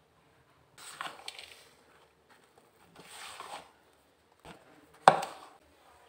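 Kitchen utensils handled against a plastic mixing bowl of whipped cream: short scraping sounds about one and three seconds in, then a light knock and a louder sharp clatter about five seconds in.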